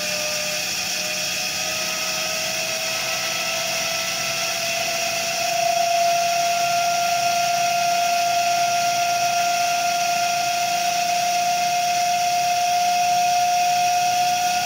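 Whine of a running separately excited DC motor and its coupled Lab-Volt dynamometer, rising in pitch over the first five or six seconds and then holding nearly steady. The field rheostat is being turned to weaken the field and bring the speed up to about 1800 rpm.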